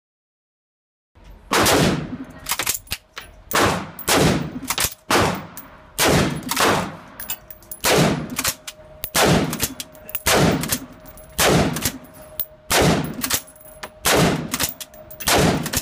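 AR-15 rifle firing a steady string of single semi-automatic shots, one or two a second, starting about a second in. Each shot echoes off the walls of an indoor range.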